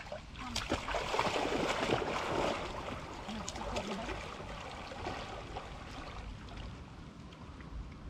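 Water splashing and churning. It swells about half a second in, is loudest for the next couple of seconds, then eases into gentler sloshing.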